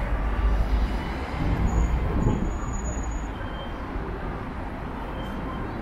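Low rumble of city street traffic, a heavy vehicle passing, louder in the first half and easing off.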